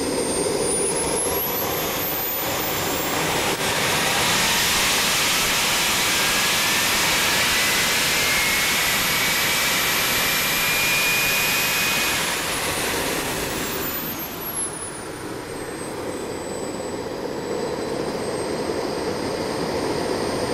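Small jet engine throttled up from idle, its whine climbing steeply in the first few seconds, held at full power, then throttled back to idle about two-thirds of the way through. While it is at full power, a lower whine rises steadily: the Mi-8 helicopter's free-turbine wheel spinning up in the jet's exhaust.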